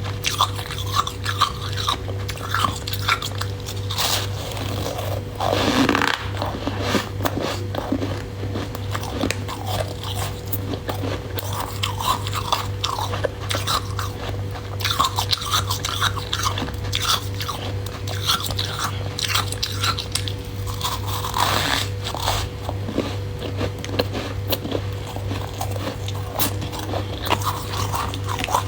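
A person biting and chewing crunchy freezer frost: a dense, continuous run of crisp crunches, with a few louder bites.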